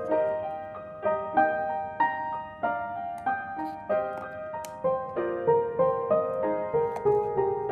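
Background music: a light melody of struck, ringing notes, a new note about every half second to second.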